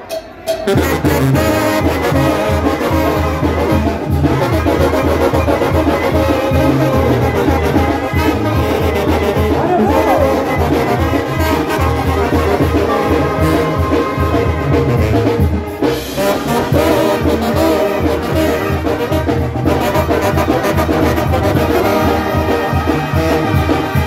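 A Sinaloan brass banda playing loud, with the trombones to the fore over an evenly pulsing bass beat. The music starts about a second in.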